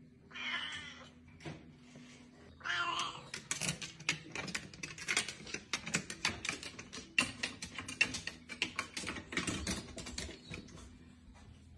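Domestic cat meowing twice, then a long run of quick clicks and taps from its claws and paws on the wooden ladder rungs as it climbs.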